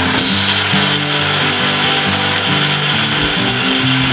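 Power tools running: an electric drill spins a cardboard pulley disc while a rotary tool's cutting disc trims it, giving a steady high whine with a grinding hiss, under background music.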